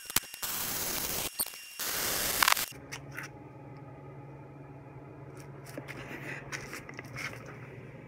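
MIG (wire-feed) welder arc crackling in two bursts of about a second each while welding a steel bracket, then stopping about two and a half seconds in. A steady low hum and a few light clicks follow.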